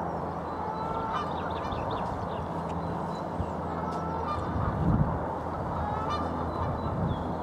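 Geese honking, several short calls spread through the clip, over a steady background hiss of wind and water. A couple of low dull thumps stand out as the loudest moments, one about two-thirds of the way in and one near the end.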